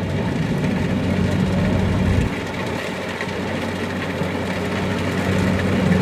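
Kubota DC-70 Plus rice combine harvester's diesel engine running steadily, a low hum under a noisy mechanical wash. About two seconds in the low hum drops away and the sound gets a little quieter, and it returns near the end.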